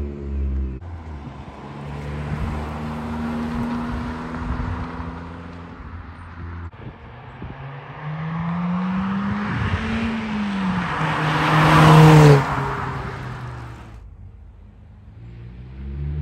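2020 Toyota Corolla hatchback's four-cylinder engine through a Remark cat-back exhaust, driven past hard in a few separate passes. The note rises under acceleration and is loudest as the car goes by about twelve seconds in, then drops in pitch and fades.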